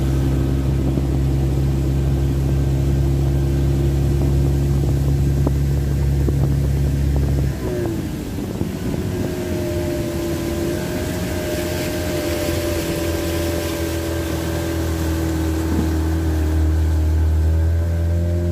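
Boat engine running steadily as the boat cruises; about seven and a half seconds in its note changes abruptly, then settles into a different steady pitch.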